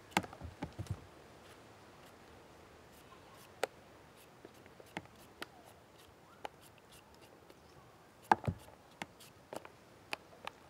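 Quiet, scattered clicks, taps and scrapes of a peeler taking the skin off a green mango over a plastic bowl, with a cluster of sharper taps at the start and again about eight seconds in.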